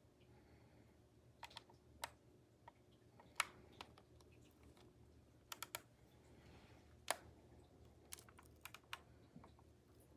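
Near silence, broken by a dozen or so faint, sharp clicks at irregular intervals, some in quick pairs or threes.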